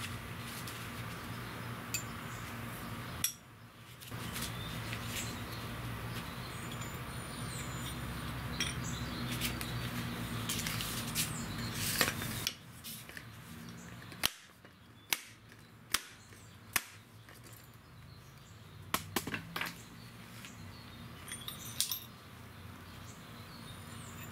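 Light metallic clicks and taps as motorcycle front fork parts are handled during reassembly, scattered and more frequent in the second half, over a steady low hum that stops about halfway through.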